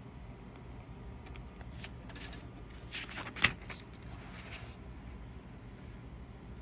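Thin notebook pages rustling and crackling as they are turned, with one sharp snap about halfway through.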